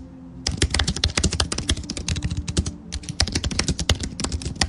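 Keyboard typing sound effect: rapid runs of key clicks that pause briefly just after the start and again about three seconds in, sounding while on-screen text is typed out.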